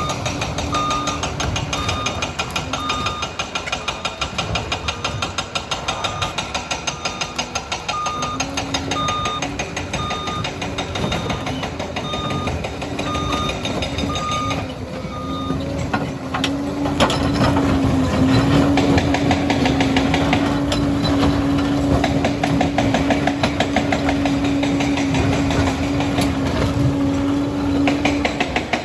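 Liebherr 746 crawler dozer working in reverse: its backup alarm beeps at an even pace over the diesel engine and the clatter of the machine. About halfway through the beeping stops and the engine settles into a louder, steady drone as the dozer works forward.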